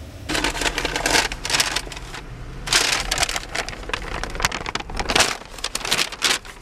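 Brown paper takeout bag rustling and crinkling as it is handled, in irregular bursts, over a steady low hum.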